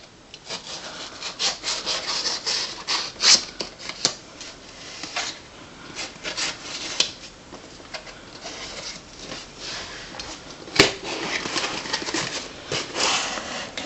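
Knife blade scraping and slicing through the tape and seams of a cardboard shipping box in irregular strokes, then cardboard flaps being pulled open. A single sharp click late on.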